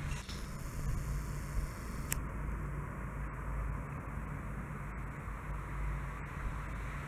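Steady low outdoor rumble of background noise, with a single sharp click about two seconds in.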